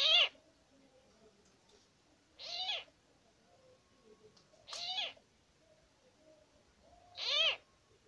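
An animal calling four times, about two and a half seconds apart: each call is short and quickly rises then falls in pitch.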